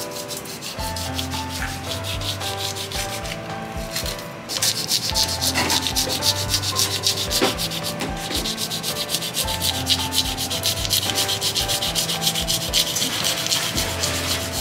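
A knife scraping the scales off the skin of a large kue (longtooth grouper) by suki-biki, in rapid, even rasping strokes, with a short pause about four seconds in.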